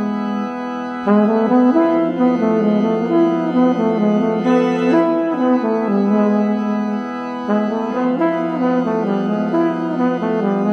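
Trumpet playing a melody over a held pipe-organ drone, with the organ chords changing every few seconds.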